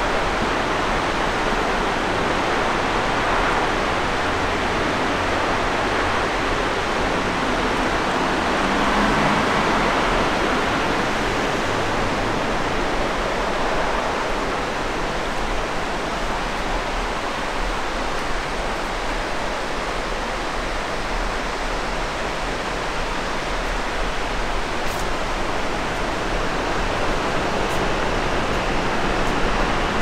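Steady rush of a river flowing through a mountain valley.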